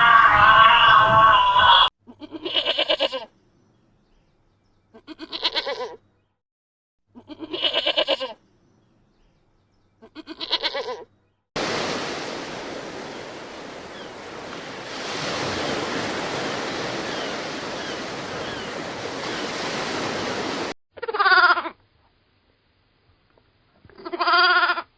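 A farm animal bleating in a series of separate calls, each lasting about a second with a wavering pitch, five in the first half. A steady rushing noise follows for about nine seconds, then two more bleats with a sliding pitch near the end.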